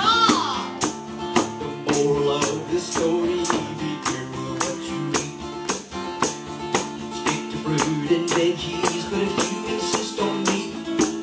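Live band playing an instrumental stretch of an upbeat novelty song: guitar chords over a steady percussion beat of about three hits a second.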